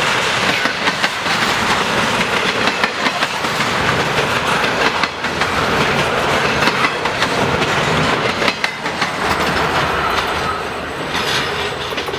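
Cars of a long intermodal freight train rolling past, steel wheels clicking over rail joints amid a steady rumble. It eases off slightly near the end.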